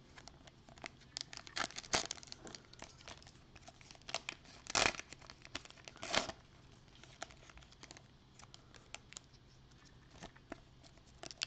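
Panini Prizm foil trading-card pack crinkling and tearing as it is ripped open by hand: a run of small crackles with a few louder rips, about two, five and six seconds in.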